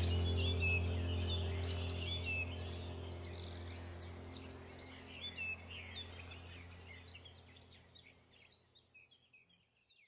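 Many small birds chirping and twittering over a steady low drone, the whole soundscape slowly fading out until it has almost died away near the end.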